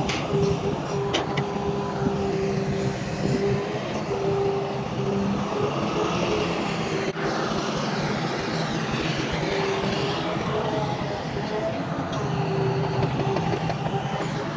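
Heavy earthmoving machinery's diesel engine running steadily, with a tone that drops in and out and a couple of sharp clanks about a second in.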